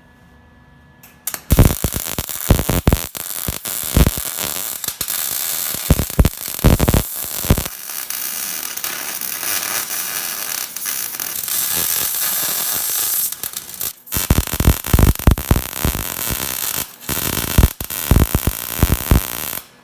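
Arc welder running a weld bead on a steel bumper: a loud, steady crackling sizzle of the arc with sharp pops. It strikes about a second in, drops out briefly twice in the later part as the arc is broken and restruck, and stops at the end.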